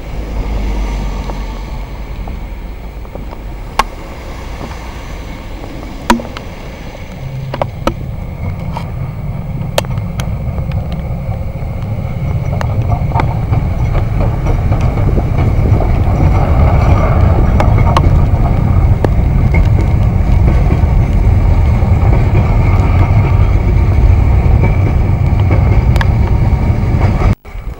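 Metre-gauge steam locomotive hauling a passenger train past, a low rumble that grows louder as it draws near and stays loud while the coaches roll by. A few sharp clicks in the first ten seconds; the sound cuts off abruptly near the end.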